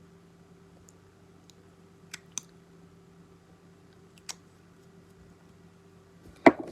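Low steady background hum, with a few light clicks and one sharp knock near the end.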